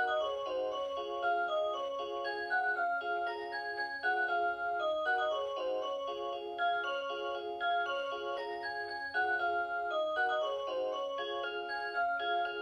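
Rhythm Clock Aria Cantabile alarm clock's 'Aurora Sound' electronic melody playing: a tune of clear bell-like notes moving up and down over held chords.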